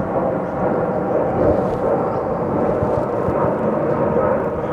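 Honeybees buzzing around an open hive: a steady, dense hum of many bees.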